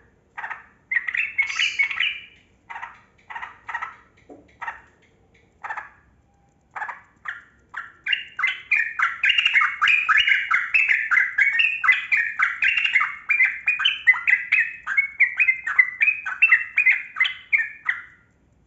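Yellow-vented bulbul (trucukan) singing: several separate short calls, then from about eight seconds in a long unbroken run of rapid chattering notes lasting about ten seconds, the long roll that bird keepers call ropel panjang.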